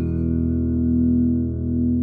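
US Spector NS-2 electric bass with J-J pickups ringing out: several notes struck together just before, left to sustain and slowly fading.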